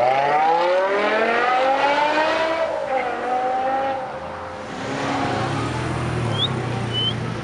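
BMW E60 M5's V10 engine revving up as the car accelerates away, its pitch climbing for about two and a half seconds and then dropping back. A lower, steadier engine note follows in the second half.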